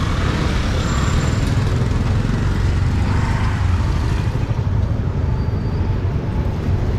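Busy street traffic: motorbike and scooter engines running as they pass close by, a steady rumble.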